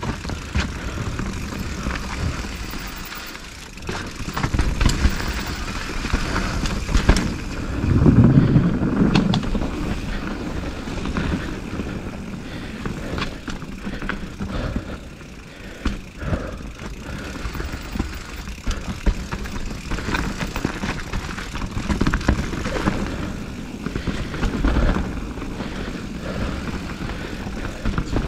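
Mountain bike riding down a rough dirt trail: tyres rolling and the bike clattering over bumps, with frequent short knocks and a few heavier low rumbles.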